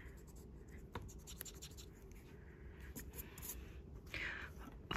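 Graphite pencil scratching faintly on paper in short strokes, as a drawing is shaded.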